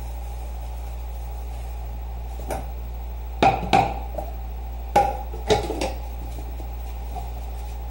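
Metal cooking pots and pans clanking against each other as they are set down and stacked: several sharp knocks between about two and a half and six seconds in, over a steady low hum.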